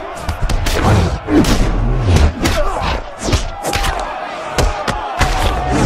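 A rapid series of punch impacts, a dozen or more sharp thuds in a few seconds, over a shouting crowd and a film music score.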